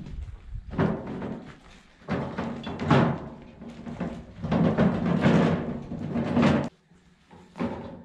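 A steel wheelbarrow loaded with loose wooden boards rattling and clanking as it is pushed over rough ground, in irregular bursts of knocking with the metal tub ringing. It stops abruptly about seven seconds in, and one short clank follows near the end.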